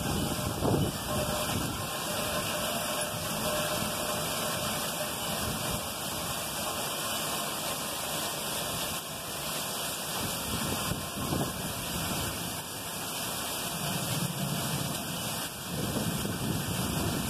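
Heavy thunderstorm downpour: a steady hiss of pouring rain, with low rumbling swelling in near the end.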